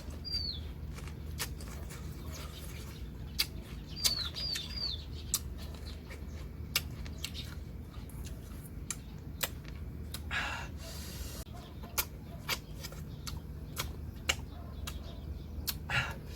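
Close-up eating sounds of crisp, juicy bilimbi fruit being bitten and chewed: scattered sharp crunches and wet mouth clicks, with two longer smacking bursts, one past the middle and one near the end.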